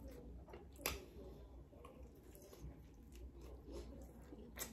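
Faint close-miked chewing of a steak-and-cheese sandwich on a hoagie roll: soft wet mouth sounds, with a sharp lip smack about a second in and another near the end.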